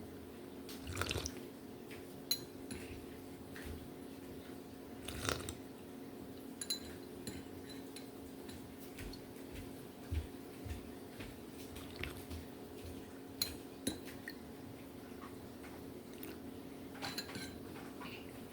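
Scattered clinks and taps of a spoon against glass and dishes, a few with a short high ring, spaced irregularly a second or several apart over a steady low hum.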